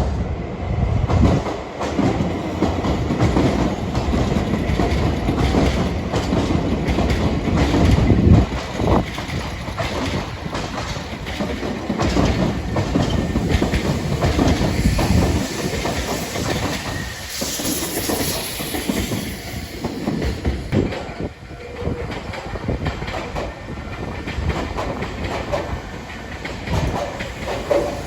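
Nankai Main Line train passing over a level crossing, its wheels clattering across the rail joints in a long run of clacks.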